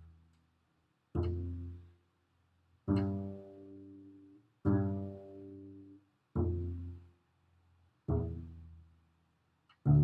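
Double bass played pizzicato: single notes plucked one at a time about every 1.7 s, each ringing and fading before the next, stepping through open D, E, F natural and open G.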